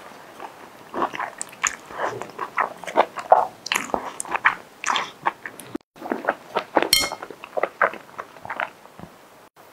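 Close-miked mouth sounds of a person eating luosifen rice noodles: a quick run of short, irregular slurps and smacks as the noodles are sucked in and chewed, picked up by a clip-on microphone on the eater's top.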